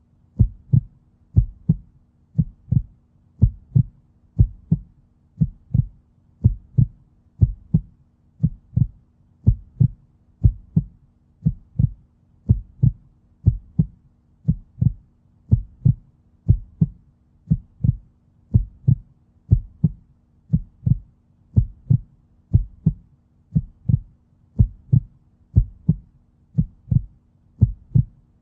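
Human heartbeat, a steady, even rhythm of low double thumps (lub-dub).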